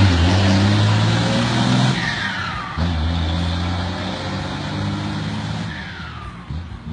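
Hino J08C inline-six turbo-diesel of a flatbed truck pulling away hard. The engine note breaks off about two seconds in and picks up again a moment later, as at a gear change. A whistle falls in pitch at that break and again near the end, and the sound grows fainter as the truck moves off.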